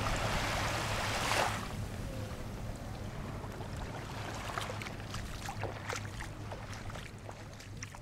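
Seaside ambience: a steady low rumble, with a hiss that eases off after about a second and a half and scattered faint clicks.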